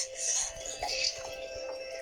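Cartoon background music with two steady held notes and light, high, rattly percussion accents.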